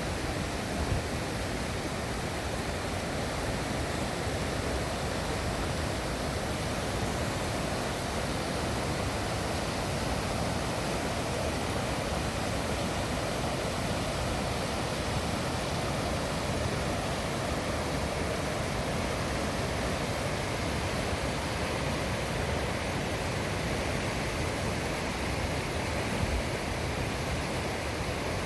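Steady rushing of a river and its waterfalls, an even hiss-like roar of water that holds constant throughout.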